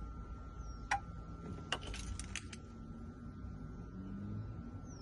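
Small sharp clicks from a car key and locksmith's tools being handled: one click about a second in, then a quick run of about five clicks around two seconds in. A faint steady hum lies beneath.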